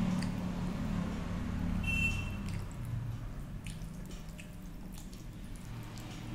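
Fingers mixing rice with dal on a steel plate: soft wet squishing with occasional light clicks of fingers against the metal.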